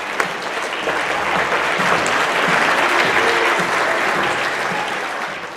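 Audience applauding steadily, fading down near the end.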